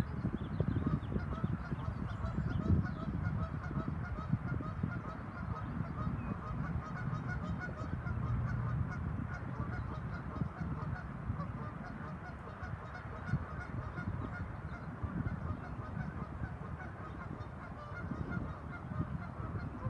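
A flock of geese honking continuously, many calls overlapping, over a steady low rumble.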